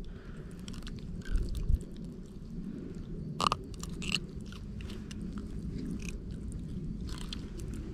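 Close handling noise: scattered rustles, crinkles and small clicks as hands grip a small striped bass in a cloth and work the hook free, with one sharper crackle about three and a half seconds in.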